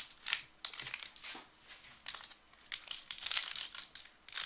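Trading card pack wrappers crinkling and rustling as packs are torn open and handled, in irregular bursts with a quieter lull in the middle.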